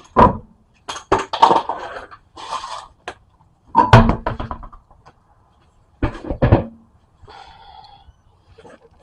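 Irregular knocks and metallic clanks of hand tools and car parts being handled, the loudest about four seconds in with a short ring, then two more a couple of seconds later.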